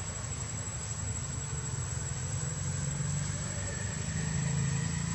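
A steady low engine hum, like a motor idling, growing a little louder about four seconds in, with a thin steady high whine above it.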